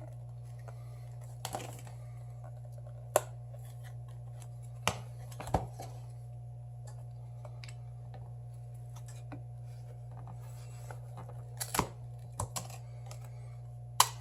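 Scattered sharp clicks and taps of small hand tools against a phone and the work surface during a phone teardown, about eight in all, some in quick pairs, over a steady low hum.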